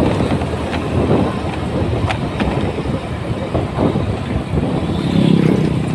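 Intercity bus exhaust giving its characteristic 'ngorok' growl: a rough, low rumble that swells louder about five seconds in.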